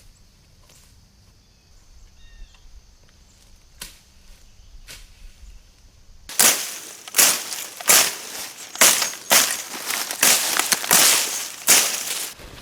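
Machete slashing through dead, dry weeds and brush in a run of about a dozen quick swishing strokes, roughly two a second, starting about six seconds in.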